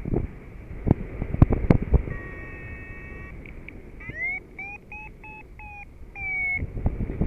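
Paragliding variometer beeping: a held tone, then a rising chirp about four seconds in, followed by a quick run of short beeps that signals climbing in lift. Wind rumbles on the microphone, and a few sharp knocks come in the first two seconds.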